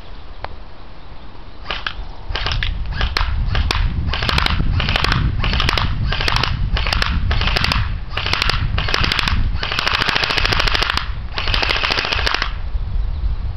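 Crosman R-72 electric airsoft gun firing: a handful of single shots, then a run of short rapid-fire bursts, and two longer full-auto bursts that stop about a second before the end.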